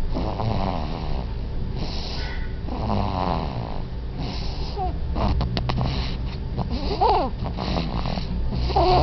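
Baby snoring loudly, a rattling snore on each breath about once a second, with a short squeaky sound about seven seconds in.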